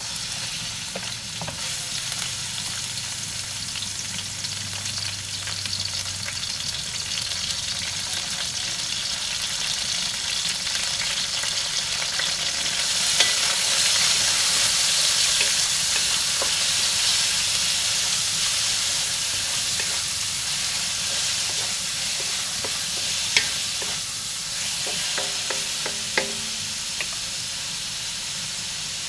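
Diced pork sizzling in hot oil in a stainless wok with golden-browned garlic and onion, the sizzle jumping up as the meat is tipped in and growing loudest about halfway through. A few sharp clicks sound near the end.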